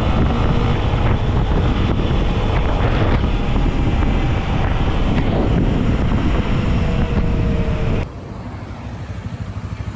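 Heavy wind blasting a helmet-mounted camera microphone as a Honda XRE300 is ridden at high speed, with its single-cylinder engine running underneath. About eight seconds in the wind noise drops suddenly and the engine's even pulsing comes through more plainly.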